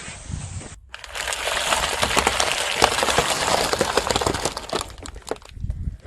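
Dense crunching and crackling of brittle things being crushed under a car tyre, many fast cracks together, lasting about four seconds before dying away into a low rumble near the end.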